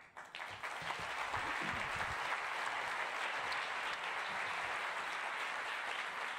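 Large audience applauding, building up within the first second and then holding steady.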